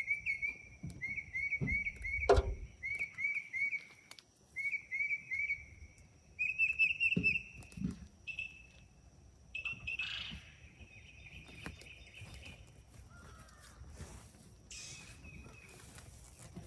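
A songbird singing quick runs of repeated chirps through the first half, over a steady high-pitched insect drone. A few soft thumps and rustles come in between, and the second half is quieter.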